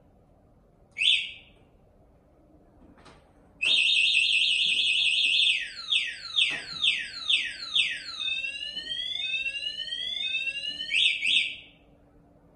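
Electric scooter's electronic anti-theft alarm siren: a short chirp about a second in, then a loud steady high beep, a run of quick falling sweeps, slower rising whoops, and two quick chirps before it stops.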